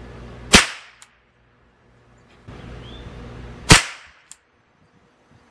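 Two shots from a Ruger 10/22 semi-automatic .22 LR rifle firing Remington Thunderbolt ammunition, about three seconds apart. Each is followed about half a second later by a faint sharp click.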